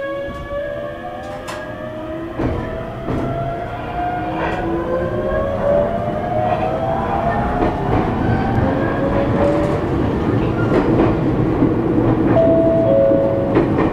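Toyo GTO-VVVF inverter of an ET127-series electric multiple unit whining as the train accelerates. Several tones climb steadily in pitch over the rumble of the wheels, with scattered clicks from the rails, and the sound grows louder as the train gains speed.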